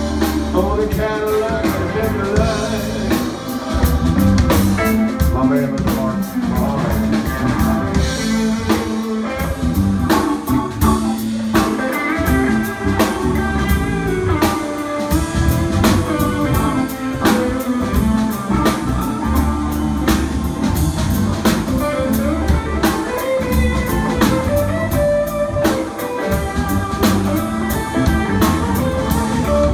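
Live blues band playing: an electric guitar plays bending lead lines over electric bass and a steady drum-kit beat.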